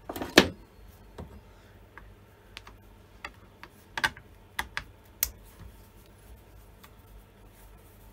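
Hand tool clicking and knocking on a chainsaw's plastic housing as a screw is worked loose with a T-handle wrench: a sharp double knock at the start, then scattered light clicks and taps, a few louder ones about four and five seconds in.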